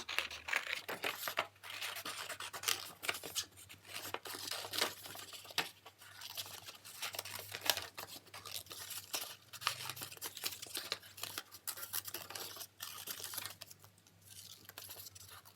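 Scissors cutting through coloured cardboard: an irregular run of quick snips with paper rustling, growing sparser near the end.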